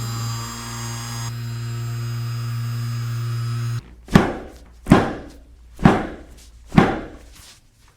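A small electric motor buzzes steadily, then cuts off suddenly a little before halfway through. Four heavy, dull thumps follow, about a second apart.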